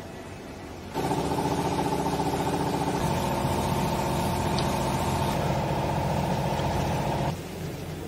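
A vertical textile baler's hydraulic power unit (electric motor and pump) starts abruptly about a second in and runs steadily with a hum and whine. Its tone shifts about three seconds in, and it cuts off suddenly near the end.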